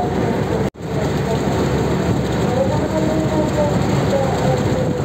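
Steady rumble and rushing noise on a car ferry's open deck: the ship's engines running under way, mixed with wind and water noise. The sound cuts out briefly under a second in.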